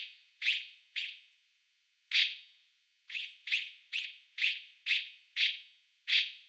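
Anime-style cartoon frog-hopping sound effect: a string of about a dozen short, high-pitched blips at an uneven pace, one hop each, with a pause of about a second after the first few.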